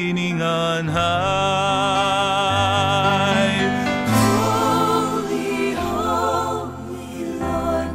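Slow background music: a singing voice holds long notes with vibrato over low sustained accompaniment.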